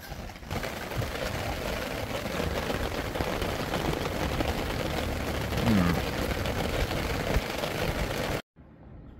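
Steady rain falling onto a fabric parasol overhead and the wet garden around it, an even hiss that stops abruptly near the end.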